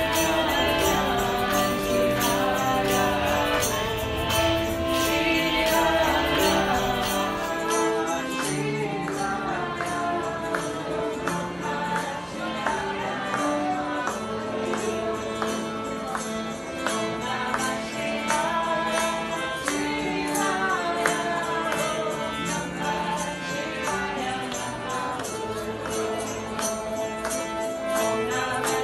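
Devotional group singing with held instrumental notes under the voices and a steady jingling tambourine-like beat.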